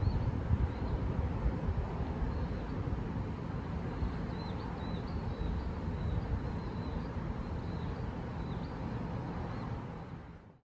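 Outdoor ambience of wind rumbling on the microphone, with faint short bird chirps repeating through the middle; it all fades out near the end.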